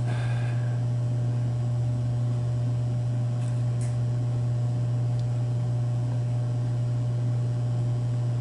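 A steady low hum with a faint background hiss, and a faint click or two about four and five seconds in.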